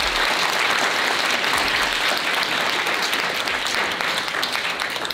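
Audience applauding: many people clapping together in a steady, dense wash.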